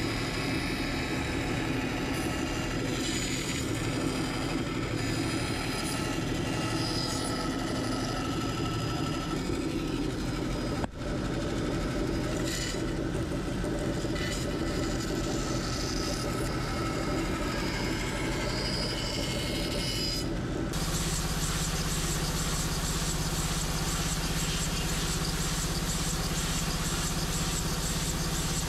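Bandsaw running and cutting a curve through a slab of ash, a steady motor hum with the blade's rasping cut, briefly interrupted about eleven seconds in. About twenty seconds in it switches abruptly to an edge belt sander running, a steadier, denser noise, as the edge of the round blank is sanded.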